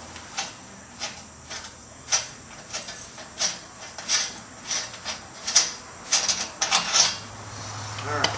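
Ratchet wrench clicking in short, irregular strokes, with a few sharp metallic clicks, as exhaust clamp bolts are loosened.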